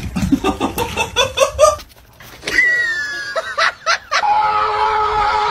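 A person laughing in quick rhythmic bursts for about two seconds. Later a long, steady held tone with a few overtones begins about four seconds in.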